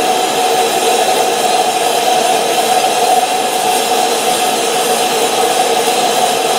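Gas torch flame burning steadily against a cast iron boat exhaust manifold: a continuous rushing flame noise with two steady tones running through it. This is the post-heat on the freshly welded crack, done to relieve welding stress before the part goes into insulation to cool.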